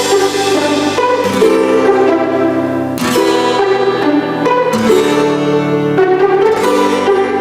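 Background music: instrumental music with plucked and bowed strings, notes changing about once a second.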